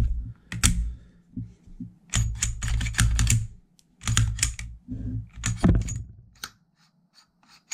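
Norsso slide being fitted onto a SIG P320 frame by hand: clusters of sharp clicks and rattles of the slide and frame parts, with dull knocks from handling the pistol.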